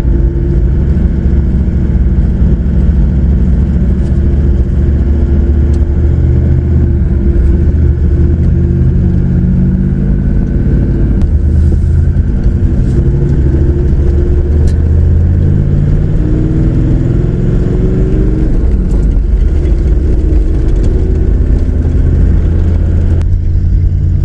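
Four-wheel drive's engine and tyres heard from inside the cab while driving a sandy track, the engine note rising and falling with speed. The sound changes about a second before the end.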